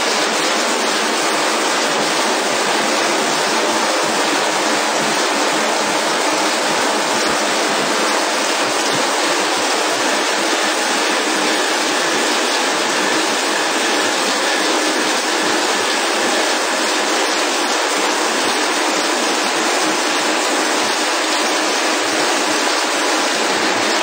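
Glass bottle washing machine running, its water jets spraying hard inside the wash chamber onto upturned glass bottles: a loud, steady hiss of water.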